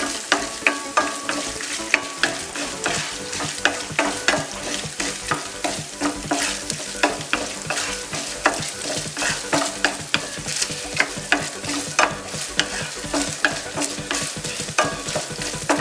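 Chopped coconut pieces frying and sizzling in hot coconut oil in a nonstick pan, being browned, while a wooden spatula stirs them, knocking and scraping against the pan a few times a second.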